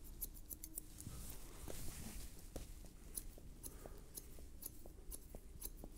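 Dark Stag DS+ 6-inch offset barber scissors cutting short hair scissor-over-comb at the nape: a steady run of faint, crisp snips, a few each second.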